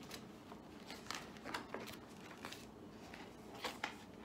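Faint paper rustling and a few soft clicks as a picture book's page is turned.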